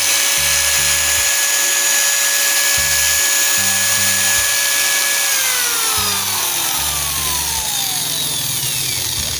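Electric angle grinder running free at full speed with a steady high whine. It is switched off about five seconds in and winds down, the whine falling steadily in pitch. This is a test run after repairing the grinder's intermittent running.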